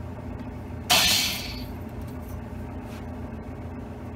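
Electric valve seat grinder spinning its stone briefly against a valve seat in a WD45 cylinder head. About a second in there is one short, loud grinding whir that dies away within about half a second. It is a light touch-up pass on a seat already in good shape, over a steady low hum.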